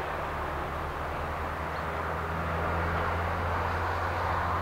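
Diesel locomotive engine running steadily out of sight: a low, even hum with a rumbling noise over it that swells a little near the end.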